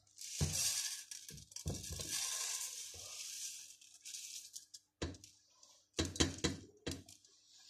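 Washed, drained sushi rice pouring out of a plastic colander into a metal pot, a steady hiss of sliding grains for about four seconds. Several knocks follow in the second half as the colander is tapped and handled over the pot.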